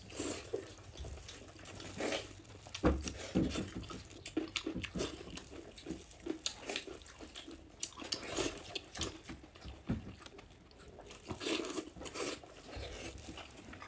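Close-up eating sounds: wet chewing and irregular lip smacks as a mouthful of spicy cooked pork large intestine is chewed.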